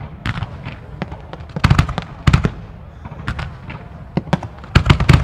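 Fireworks going off in quick succession: sharp bangs and cracks over a continuous crackle. The loudest clusters of bangs come about two seconds in and again near the end.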